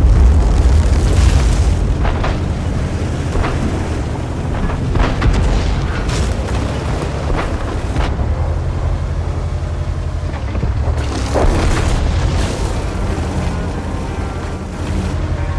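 Thunder rolling in a long, low rumble, loudest at the start and easing off, with sharper cracks breaking through now and then.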